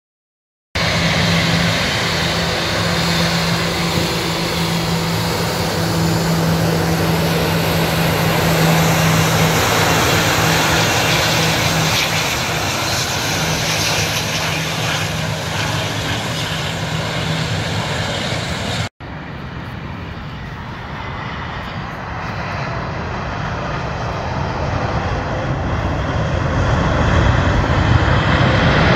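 Jet engines of a Lufthansa Airbus A340 airliner running loud on the runway: a steady rush with a held low hum, starting about a second in. After a sudden cut about two-thirds of the way through, a second jet airliner's engine noise is heard, quieter at first and then swelling louder toward the end.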